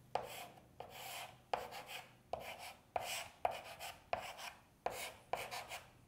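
Chalk scratching on a chalkboard in a quick series of short strokes, about two a second, each a sharp tap followed by a brief scrape, as small arrows are drawn.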